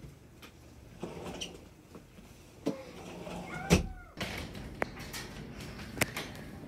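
A door being handled: clicks and knocks, a short squeaky glide just after three seconds in, then a sharp thump, the loudest sound, with small latch-like clicks near the end.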